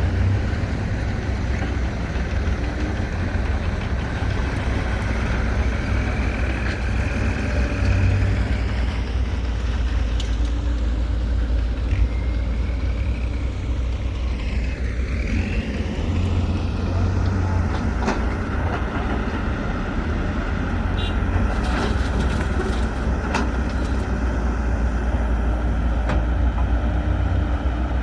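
Heavy diesel engine running steadily with a deep rumble. A few light clicks come in the second half.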